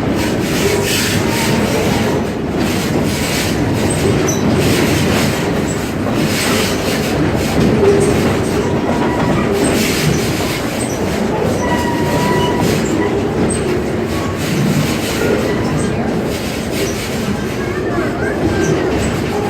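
Stone Mountain Park excursion train running on the track, heard from aboard: a steady rumble of wheels with clacking over rail joints and a thin wheel squeal now and then.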